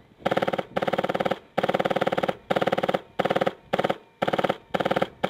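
Airsoft light machine gun firing on full auto in short bursts: about nine quick bursts, each a fast rattle of shots under a second long, with brief pauses between.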